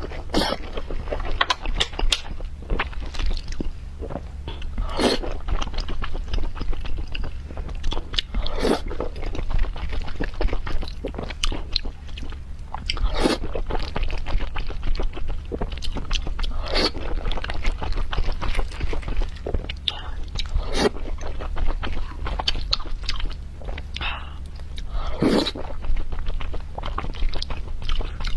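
Close-miked chewing and biting of wontons in chili oil: wet mouth sounds with irregular sharp smacks and clicks, a few louder bites, over a steady low hum.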